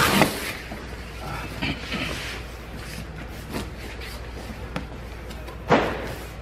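Cardboard box flaps being pulled open and handled, with scattered rustles and scrapes, a loud sharp one at the start and another near the end.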